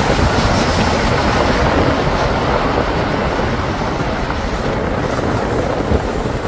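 Steady rumble of a car on the move, tyre and engine noise, easing a little in the second half.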